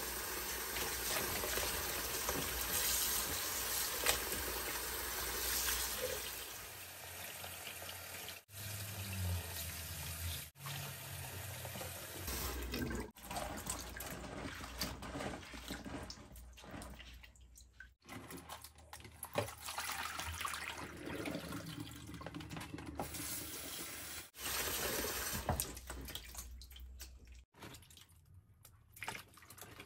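Kitchen tap running into a stainless steel sink over live crabs in a plastic colander for about the first six seconds, then quieter water sloshing and splashing as the crabs are rubbed clean by hand.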